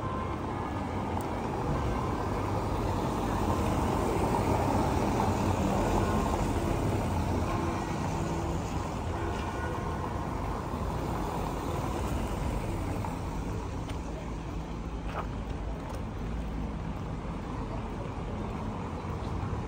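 Street noise with a motor vehicle passing, swelling over the first several seconds and then easing off to a steady background.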